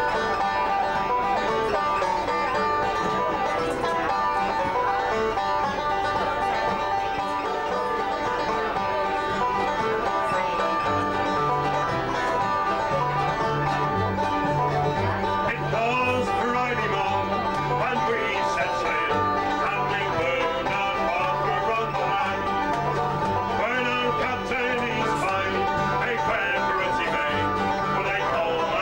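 Acoustic folk band playing a tune on five-string banjo, fiddle and acoustic guitars, over a steady alternating bass line.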